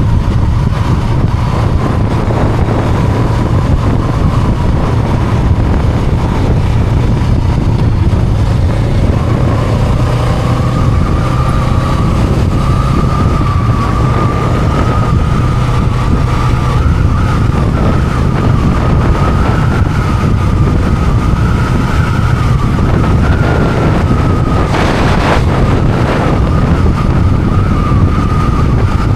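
Honda Rebel 500's parallel-twin engine running steadily while riding, with road and wind noise. A thin high whine edges up slightly about ten seconds in, and a short burst of noise comes near the end.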